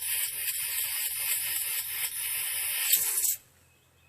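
Butane gas hissing from a cooking-gas can's nozzle as it is pressed into the refill hole in the base of a Bic lighter, filling it with gas. The steady high hiss cuts off suddenly about three and a half seconds in when the can is lifted away.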